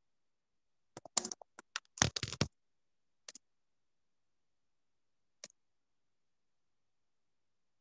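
A quick cluster of sharp clicks and clatter, the loudest about two seconds in, then two single clicks later, picked up by a video-call microphone with dead silence between them.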